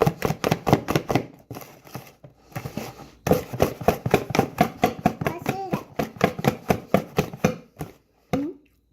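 Spoon stirring cake batter in a mixing bowl by hand, a quick run of clacks about five a second that pauses briefly and starts again. A child's brief voice sounds near the end.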